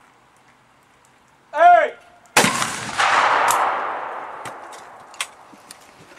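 A short shouted call, then about half a second later a shotgun shot at a clay target. The report echoes and dies away over about three seconds, and a few faint clicks follow.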